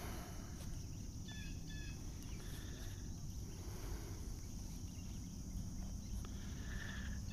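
Faint lakeside ambience: a steady high insect chorus, with a few brief bird chirps between one and two seconds in.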